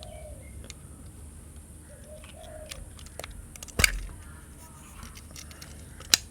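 Mechanical clicks from a Canon F-1 film camera being handled as its back is opened to show the film compartment: light clicks throughout, a loud click about four seconds in, and a sharp click near the end.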